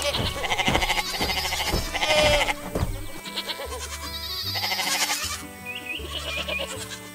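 Sheep bleating a few times over light background music with steady bass notes.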